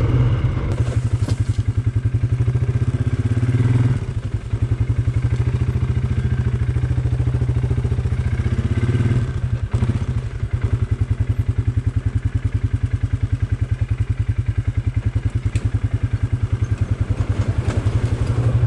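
Polaris ATV engine running as the quad is ridden along a dirt trail, a steady low putter of firing pulses. The engine sound dips briefly twice, about four seconds in and again around nine and a half seconds in.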